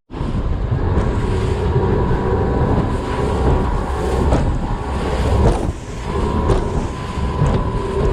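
Bass boat's outboard motor running at speed over rough, choppy water, with wind buffeting the microphone and several knocks of the hull slamming into waves.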